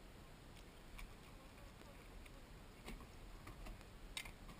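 Near silence with a few faint, sharp ticks scattered through it, about four in all.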